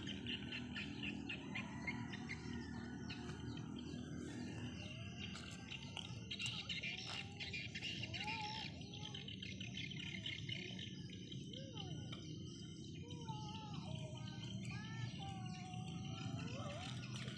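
Birds chirping, with rapid high chirps throughout and, from about halfway on, short whistled calls that bend up and down in pitch.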